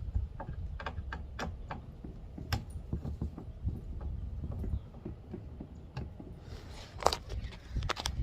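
Irregular light clicks and taps of a screwdriver and small screws being worked out of a Foxbody Mustang's plastic console armrest, with a sharper knock about seven seconds in, over a low steady rumble.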